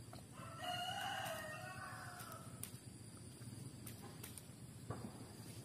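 A rooster crowing once: a single drawn-out call of about two seconds, starting about half a second in, that falls away in pitch at the end.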